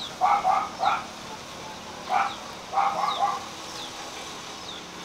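Animal calls in short clusters of two or three, loudest near the start and in the middle, over a bird's repeated high, falling chirp.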